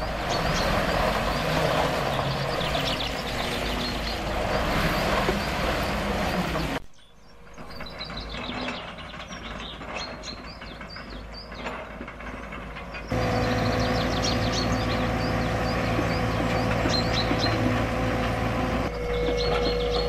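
Diesel tipper lorry running as it tips and spreads road stone. About a third of the way in it gives way to a quieter stretch of birds chirping over a distant excavator. About two-thirds in, a Komatsu track excavator's diesel engine runs close by with a steady whine.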